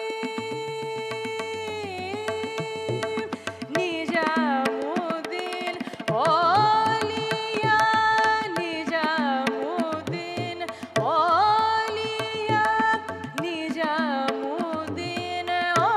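A woman singing an Indian classical-style vocal line with tabla accompaniment. She holds one long note that dips near the two-second mark, then sings ornamented phrases full of sliding, wavering turns, over a steady drone, with tabla strokes keeping the rhythm.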